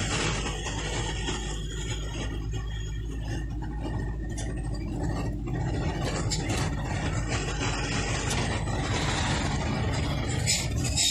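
A passenger jeepney's engine running steadily, with road noise heard from inside the moving cabin, and a few light clicks near the end.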